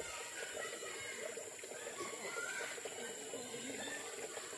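Outdoor ambience: a steady high-pitched hiss, with faint, indistinct voices in the background.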